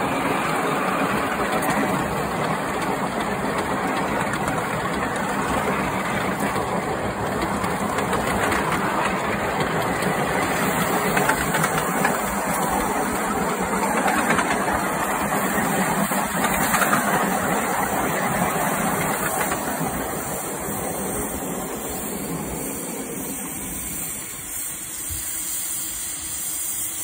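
5-inch gauge Sweet Pea live-steam locomotive running along the track under steam: a rapid exhaust beat with steam hiss. It gets quieter from about twenty seconds in.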